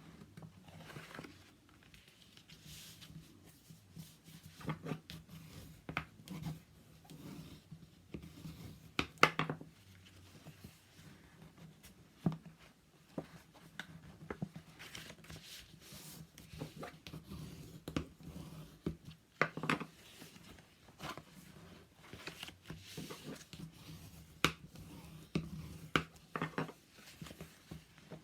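Paper being folded along score lines and the creases burnished: rustling, short rubbing strokes and scattered taps and clicks, with a faint steady hum underneath.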